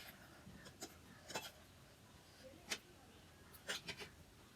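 Quiet eating sounds during a mukbang: a handful of short, sharp clicks and smacks at irregular intervals.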